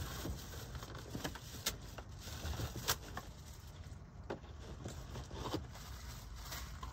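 Small clicks, knocks and rustles of things being moved about in an overhead cupboard, about half a dozen sharp taps spread through, over a low steady hum.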